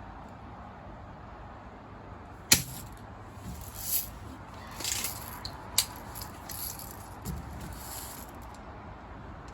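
Red Ryder BB gun firing with one sharp snap about two and a half seconds in, followed by several softer clicks and rattles and a second sharp click a few seconds later.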